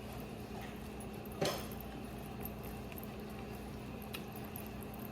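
Steady faint bubbling and sizzling of a pot of rice boiling on the stove, with one sharp knock about one and a half seconds in and a faint tick near the end.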